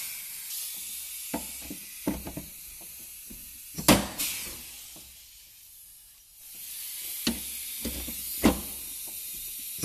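Pneumatic rivet gun setting blind rivets through a snowmobile running board and tunnel: a hiss of air, with a sharp snap about four seconds in as a rivet's mandrel breaks off. Smaller clicks and knocks come as the gun is moved and fitted onto the next rivet. The hiss fades out past the middle and returns.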